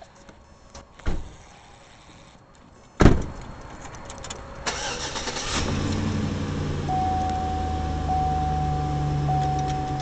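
A sharp knock about a second in, then a car door slams shut. The SUV's engine cranks, starts and settles into a steady idle, and near the end a steady warning tone from the car comes in, with short breaks.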